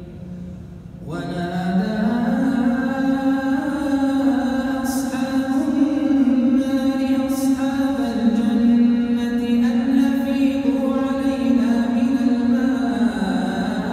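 Male voice of an imam reciting the Quran aloud in a slow melodic chant, holding long notes that rise and fall in pitch. One phrase ends and a new one begins about a second in.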